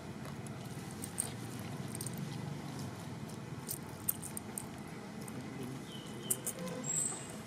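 A long-tailed macaque eating fruit: scattered light clicks and taps of chewing and handling over a steady outdoor hiss. Two brief high chirps come near the end.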